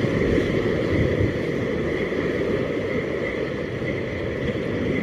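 Sea surf washing and breaking against shoreline rocks, with wind buffeting the microphone.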